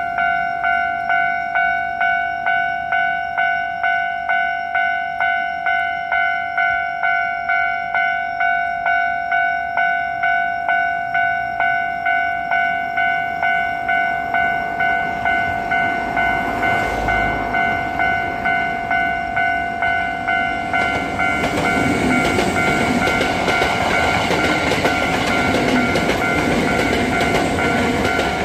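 Japanese level crossing warning bell ringing in a steady, even beat of about one and a half rings a second. A Hankyu Takarazuka Line electric train approaches and runs past from about two thirds of the way in, its wheel and running noise rising over the bell.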